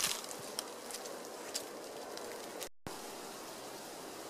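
Dry brush and dead leaves rustling faintly underfoot, with a few sharp twig snaps. After an abrupt cut this gives way to a steady faint outdoor hiss.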